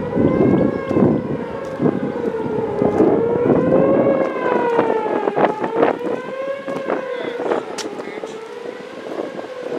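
Outdoor tornado warning siren sounding one long, held wail that slowly wavers up and down in pitch. Gusting wind buffets the microphone, heaviest in the first few seconds.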